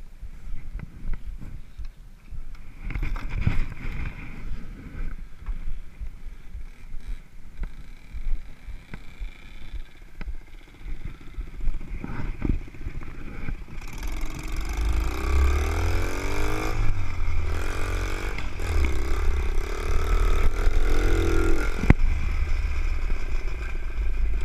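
Wind buffeting the microphone and a few knocks at first. About halfway in, a pit bike's small single-cylinder engine starts and revs up and down, then keeps running as the bike is ridden.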